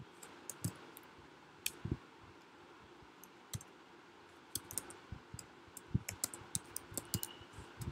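Typing on a computer keyboard: irregular key clicks, a few at first, a sparser pause of about two seconds, then a quicker run of keystrokes in the second half.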